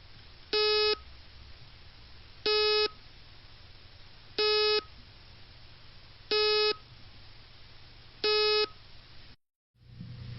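Failed hard disk drive beeping: five short, evenly spaced beeps about two seconds apart over a faint hum. This is the typical sign of a drive whose spindle motor cannot spin the platters up, as with heads stuck to the platters or a seized motor.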